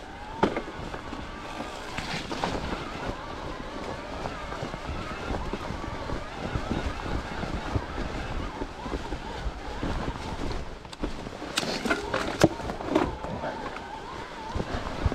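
Hydraulic disc brake on a Cube 29-inch mountain bike squealing with a wavering tone while riding, over tyre rumble and wind on the microphone, with a cluster of sharp clacks and rattles from the bike near the end. The rider blames the brake noise on air in the brake line.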